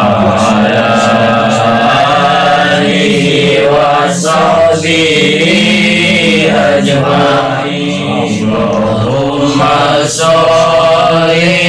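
Male voice chanting an Arabic devotional sholawat in long, drawn-out notes, pausing briefly for breath a few times.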